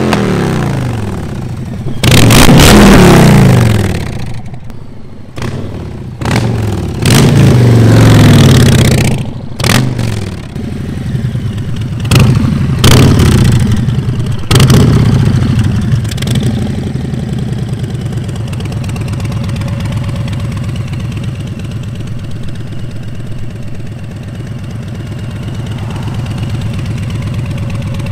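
Harley-Davidson Street Bob's Milwaukee-Eight 114 V-twin through a Freedom Performance Radical Radius 2.5-inch 2-into-2 aftermarket exhaust. It rides past and revs loudly several times in the first half, its pitch falling after each burst, then settles into a steady idle for the second half.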